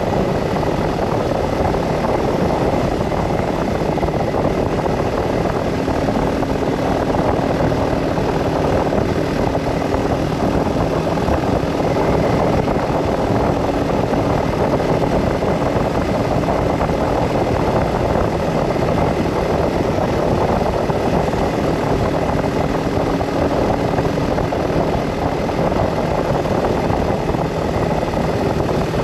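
Car driving along a road: steady tyre, engine and wind noise, with a faint low hum that comes and goes.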